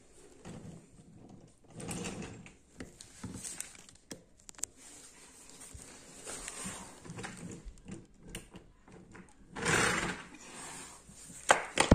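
Wooden toy train wheels rolling and rattling along wooden track, clicking over the joints between sections. The clatter is loudest about ten seconds in, and there are a few sharp knocks near the end.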